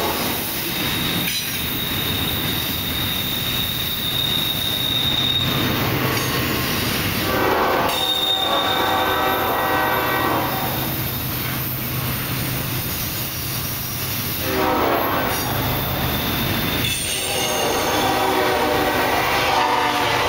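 A CSX double-stack intermodal freight train rolling past at a grade crossing, with a steady rumble of wheels on rail. The wheels squeal high-pitched in stretches, about a second in for several seconds and again around eight seconds in, with more screeching near the end.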